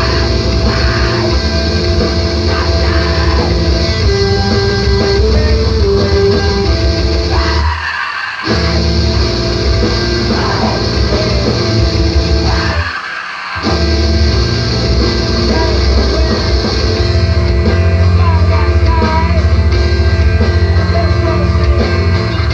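Loud, heavy emoviolence/screamo band music playing from the recording. Twice the bass and drums cut out briefly, about a third of the way in and again a little past the middle, leaving only the higher parts sounding.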